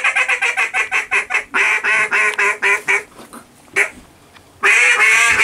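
Mallard duck call blown hard in fast strings of loud, nasal quacks: a long run in the first second and a half, another string from about one and a half to three seconds, and a loud burst near the end.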